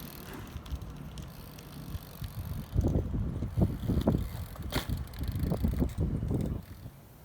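BMX bike being ridden: tyres rolling over rough ground with knocks and rattles from the bike. It gets louder about three seconds in and fades out near the end.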